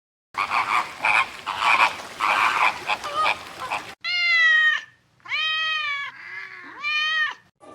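A domestic cat meowing three times, each meow rising and then falling in pitch, with a fainter lower mew between the second and third. Before the meows there are a few seconds of rough, chattering animal noise.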